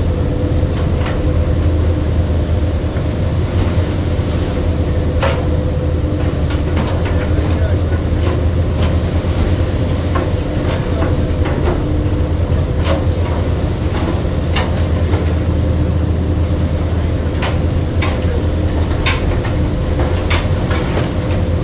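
Steady low drone of a crab fishing boat's engine and deck machinery, with irregular sharp metallic knocks and clanks from work on deck.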